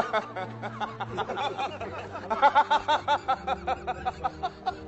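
Men laughing: a few short chuckles at first, then from about two seconds in a hearty laugh of rapid 'ha' pulses that trails off near the end.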